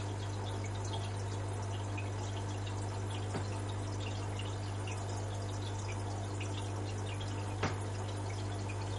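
Water dripping and trickling steadily in a small enclosure, with a steady low hum underneath. One faint click comes about three and a half seconds in, and a sharper, louder one comes near the end.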